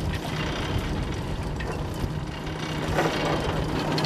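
Small fishing boat's engine running at idle, a steady low hum, with a few knocks of gear near the end.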